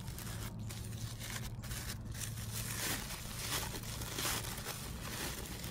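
Tissue paper rustling and crinkling as a candle is unwrapped by hand, over a steady low hum.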